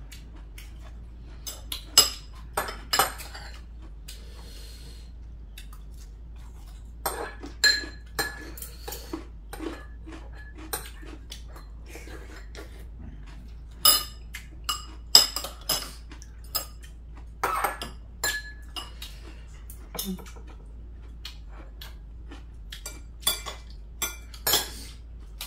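Metal chopsticks and spoons tapping and clinking against ceramic bowls and plates while eating, in scattered irregular clicks, some ringing briefly.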